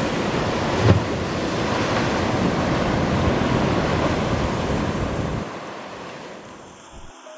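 Rough sea surf breaking and rushing, with wind on the microphone. A brief low thump about a second in. The sound dies down over the last two seconds.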